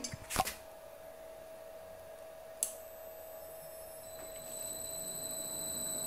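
A button click, then the PM1236 lathe's three-phase motor starting on its Huanyang VFD under the jog control. A high steady electrical whine sets in, and the sound grows gradually louder from about halfway as the drive ramps the motor up.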